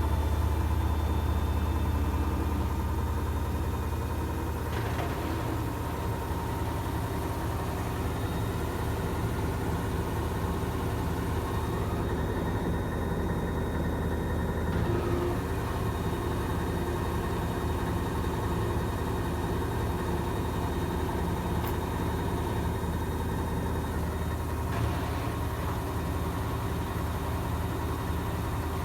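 Gorenje washing machine in its final spin: a steady motor and drum hum with several held tones. About five seconds in the deep hum falls away and the sound becomes a little quieter.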